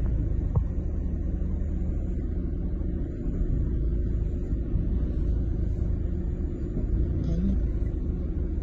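Steady low rumble of a swollen, fast-flowing floodwater river, with no distinct separate events.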